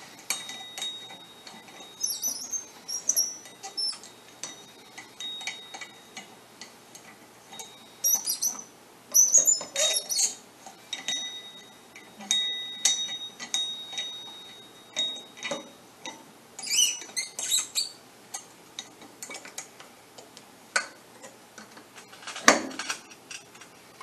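Small metallic clicks and clinks from an Alligator rivet belt-lacing tool being tightened on a steel workbench to clamp a hay baler belt splice, with one louder knock near the end.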